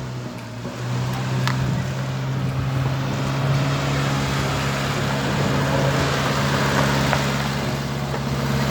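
Ford Capri Mk2's engine running steadily at a constant speed, with a steady low hum throughout.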